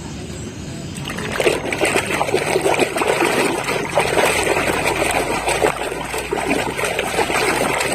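Water splashing and trickling over a muddy toy as it is washed, starting about a second in and continuing steadily.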